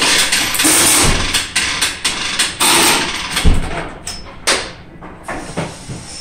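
Compressed-air tool running in loud bursts of hiss with metal clanks for about three seconds, then a heavy thump and a few quieter knocks and clicks of tools on the truck's wheel and lift.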